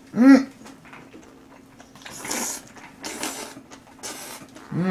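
A person eating spicy Carbonara Buldak stir-fried instant noodles: a short hummed sound just after the start, the loudest thing heard, then about three noisy slurps about a second apart, and another short hummed sound at the end.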